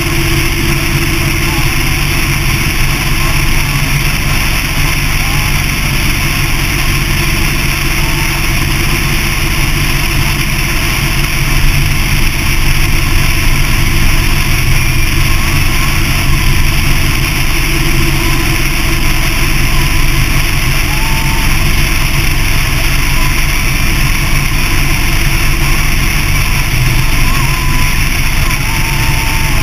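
Motorcycle cruising at steady interstate speed: a steady engine drone under wind rush on the bike-mounted camera, a little louder about twelve seconds in.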